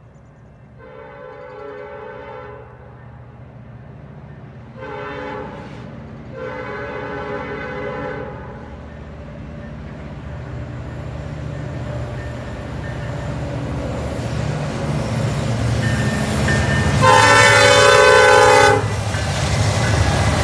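Freight diesel locomotive horn sounding four blasts: long, short, long, then after a pause a last long blast near the end. Beneath it the rumble of the approaching diesel locomotives and the wheel noise on the rails grow steadily louder as the train closes in.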